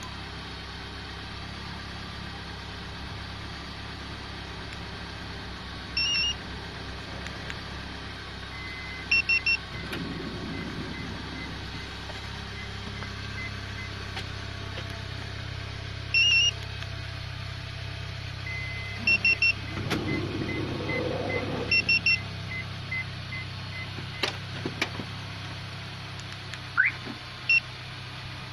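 Car engine idling steadily while a StarLine B9 car alarm key fob gives short high beeps every few seconds, several of them in quick threes, as its buttons are pressed. A few clicks come near the end.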